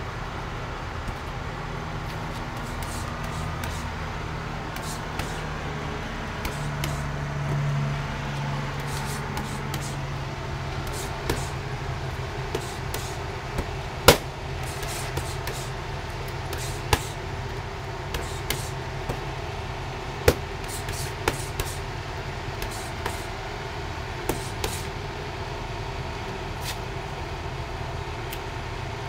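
Boxing gloves punching focus mitts: sharp slaps at irregular intervals starting about a third of the way in, two of them louder than the rest. Underneath is a steady rumble of road traffic.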